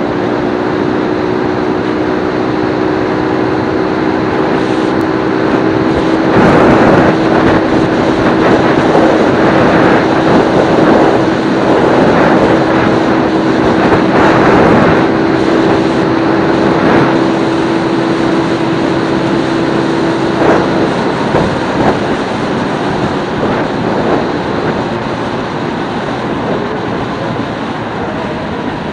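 Motorcycle riding along a road at steady speed: wind rushing over the camera's microphone over a steady engine hum. The wind swells louder from about six to sixteen seconds in, and the hum drops away about twenty seconds in.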